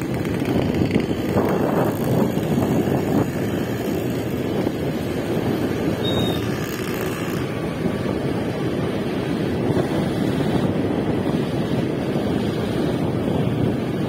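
Ride on a moving motorcycle: steady wind rush over the microphone with the engine running underneath.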